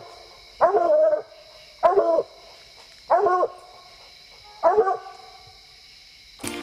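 Coonhound barking at the foot of a tree: four separate barks about a second and a quarter apart. This is tree barking, a sign that the hound has a raccoon treed.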